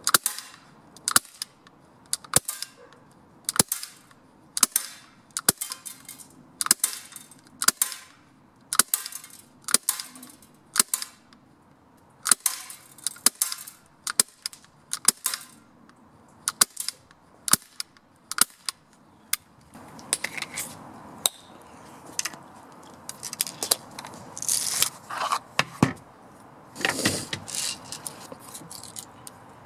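CO2 pellet pistol firing about once a second, each shot a sharp short crack; the pistol is running low on CO2. In the last third the shots give way to irregular clattering and clicking.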